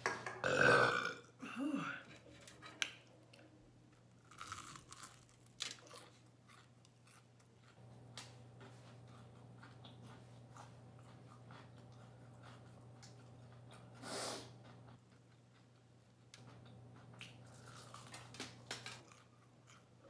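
A woman burping loudly twice near the start, the second burp falling in pitch, then chewing crunchy Hot Cheetos–crusted fried chicken, with another loud short burst about two-thirds of the way through.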